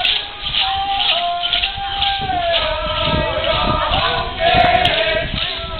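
Men's voices singing a Wampanoag stomp dance song, in long held notes that glide up and down.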